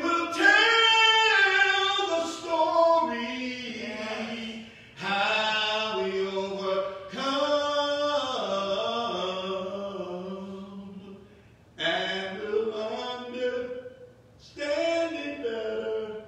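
A man singing a hymn solo and unaccompanied, drawing out long held notes that slide between pitches, with a few short pauses for breath.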